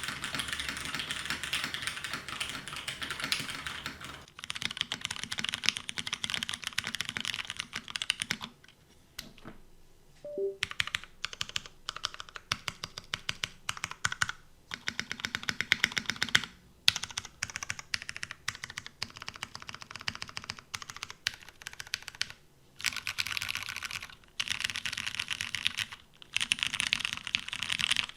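Typing on a custom mechanical keyboard with lubed Ergo Clear switches in an aluminium plate, a copper-bottomed case and GMK keycaps. Fast runs of keystrokes are broken by short pauses, with a longer lull of about two seconds around nine seconds in.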